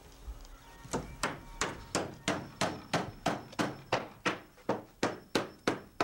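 A hammer driving nails into a wooden board gate: about fifteen steady, evenly spaced blows, roughly three a second, each with a short metallic ring, starting about a second in.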